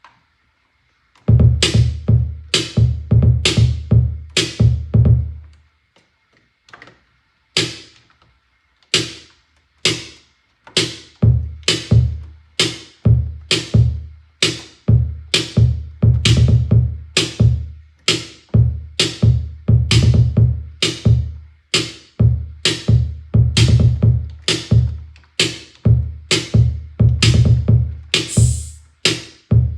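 Roland TR-08 drum machine playing a beat, starting about a second in: sharp hits about twice a second over deep, long-ringing 808 bass drum notes. The bass drops out for several seconds after about five seconds in, leaving sparser hits, then comes back.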